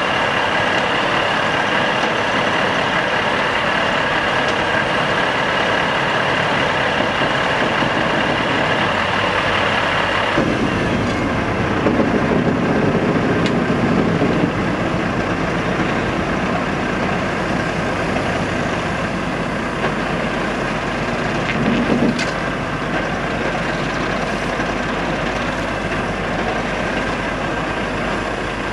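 Heavy recovery vehicles' diesel engines running steadily, with a high whine that stops about ten seconds in, after which the low engine sound grows stronger.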